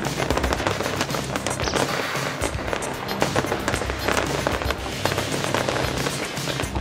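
Aerial firework shells bursting in a rapid, continuous barrage of bangs and crackles, with music mixed in underneath.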